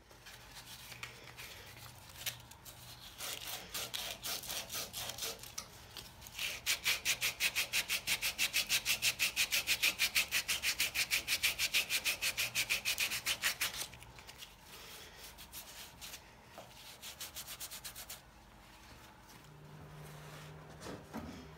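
Quick back-and-forth hand-sanding strokes on an old wooden part of a crosscut saw handle, about five strokes a second, loudest through the middle and then lighter and sparser before stopping. A low steady hum comes in near the end.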